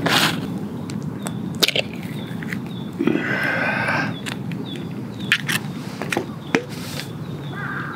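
Food being topped in a small metal bowl: a rustle of Korean seaweed flakes shaken in, a few sharp clicks of utensils or container, and a soft wet slide about three seconds in as an onsen egg is laid on top. A steady low outdoor rumble and faint repeating chirps sit underneath.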